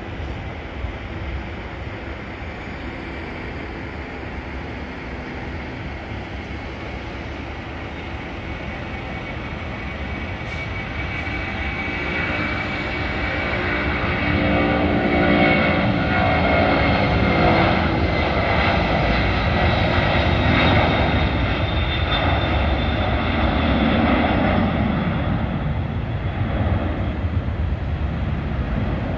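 Twin turbofan engines of a Boeing 767-300ER freighter at takeoff thrust. The rumble grows steadily louder as the jet rolls down the runway, with a whine that falls in pitch as it passes by, then stays loud as the aircraft climbs away.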